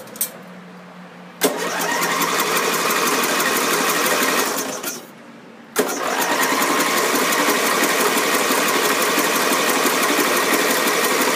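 Lawn tractor's electric starter cranking the engine twice: a burst of about three seconds, then after a short pause a longer one of about six seconds, each coming in with a sharp clunk. The engine does not catch: the tractor has sat unused for a year.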